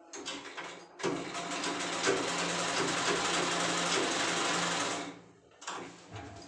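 Hand-cranked sewing machine stitching: a short burst, then about four seconds of steady, evenly ticking stitching that stops about five seconds in. Fainter fabric handling follows near the end.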